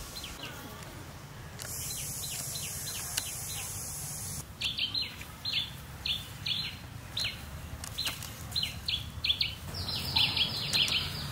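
A bird calling over and over with short, high, falling chirps, about one or two a second, from about four seconds in. Before that, a few seconds of high steady hiss that starts and stops abruptly.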